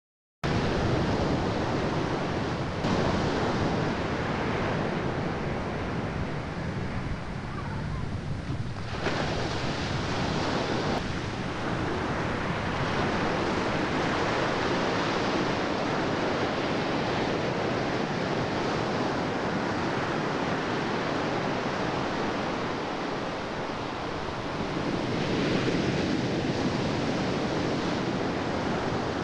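Steady rushing noise of sea water and wind on the camera's microphone, with no distinct pitched sound. It shifts abruptly a few times where clips are cut together.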